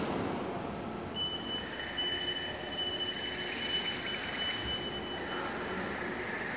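Joloda Trailerskate automatic loading conveyor running as it moves a load of tyres, a steady mechanical noise. A steady high-pitched tone sounds over it for about four and a half seconds, starting about a second in.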